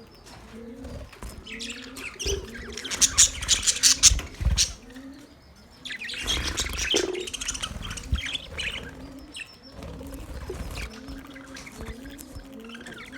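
Male budgerigars chirping and warbling, in two busy bursts of rapid high chirps about two and six seconds in, quieter between.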